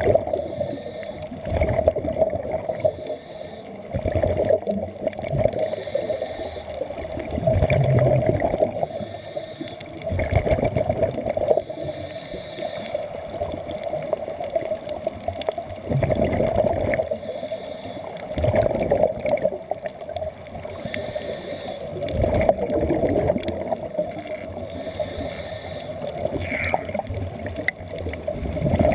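Underwater bubbling and gurgling of escaping air, coming in bursts every couple of seconds over a steady hum.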